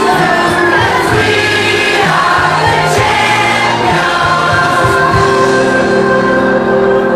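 A group of children singing together into microphones, settling into one long held note about five seconds in.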